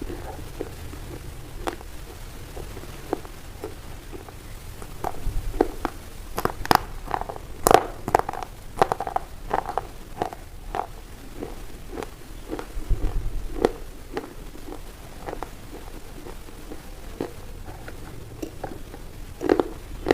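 A knife cutting a bar of white soap: irregular crisp cracks and crunches, thickest and loudest in the middle.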